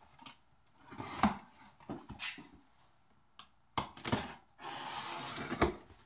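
A corrugated cardboard box being handled and opened: several sharp knocks and taps, then, about two thirds of the way through, a second-long rasp of cardboard or packing tape that ends in another knock.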